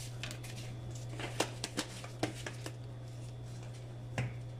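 Light clicks and taps of a metal spoon and spice jar being handled as dry seasoning is spooned over raw fish: a string of scattered small clicks in the first three seconds and one more near the end, over a steady low hum.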